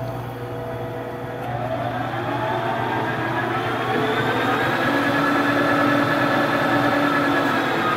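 Monarch 10EE lathe running in reverse in back gear with the lead screw and half nuts engaged: a steady hum with a whine that rises in pitch over the first few seconds as the spindle speeds up, then holds steady. The gear train runs nice and quiet, without the earlier gear rattle, which the owner puts down to a simple adjustment.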